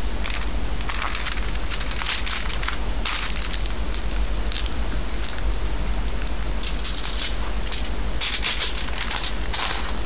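Aluminium foil crinkling and crackling in repeated bursts as it is folded and creased by hand, the busiest stretch coming near the end.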